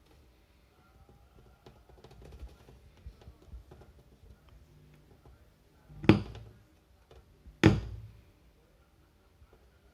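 Faint clicks and knocks, then two heavy thumps about a second and a half apart, each dying away quickly.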